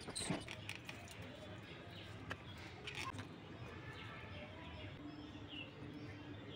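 Light clicks and rustles of hands handling paper and thin sticks on a tabletop, a few sharp clicks in the first three seconds. Faint bird chirps in the background in the second half.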